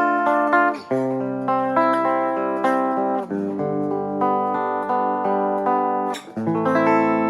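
Harley Benton ST80 FR HH Super Strat electric guitar playing a slow run of ringing chords, each held for one to three seconds, with a brief strum-like scrape just before the last chord change a little after six seconds.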